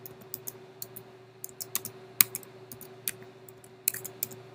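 Typing on a computer keyboard: irregular key clicks, some single and some in quick runs with short pauses between, over a faint steady hum.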